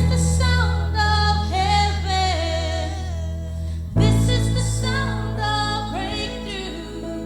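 Music: a sung, gospel-style melody over sustained low chords that change about four seconds in.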